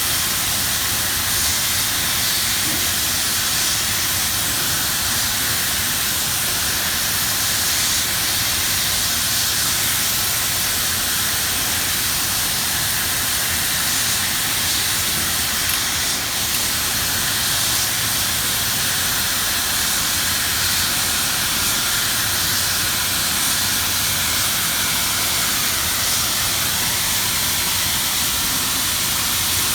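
Gas brazing torch flame hissing steadily while a valve is brazed by hand.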